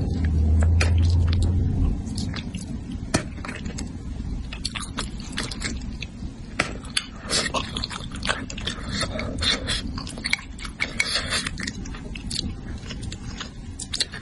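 Close-miked eating of braised fish: chewing and wet mouth sounds with many small clicks and smacks. A low hum sounds under the first two seconds.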